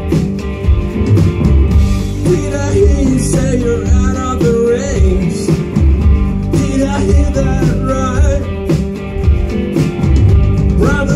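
Live rock band playing: electric guitars and drums, with a singer's voice coming in over them a couple of seconds in.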